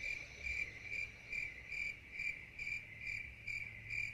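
Crickets chirping in an even rhythm, a little over two chirps a second, over a low hum. It starts and stops abruptly, like the 'crickets' sound effect that marks an awkward silence.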